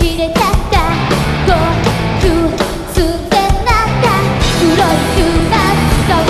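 Live heavy-rock band playing: a steady drum beat with evenly spaced hits under guitar, with a singer's voice gliding up and down over it.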